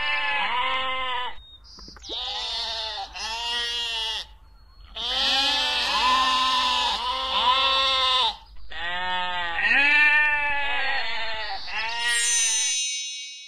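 Sheep bleating: a run of quavering bleats from several animals, sometimes overlapping, with a short lull about four seconds in.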